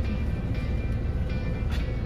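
Background music playing over the low rumble of a moving city bus.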